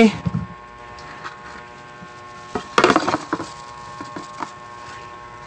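A cluster of sharp knocks and clatters about halfway through, from a plate being handled on a table, over a faint steady hum.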